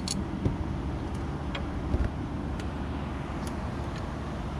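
Scattered light metallic clicks and a soft knock of hand tools on the bolts and bracket of the reverse-gear actuator as it is worked loose, over a steady low background rumble.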